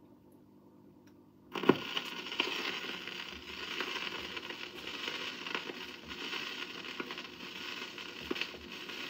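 Stylus set down on a spinning 7-inch vinyl single on a vintage record player: a faint hum, then a thump about a second and a half in as the needle lands, then steady crackle and scattered pops of surface noise as it runs through the lead-in groove before the music.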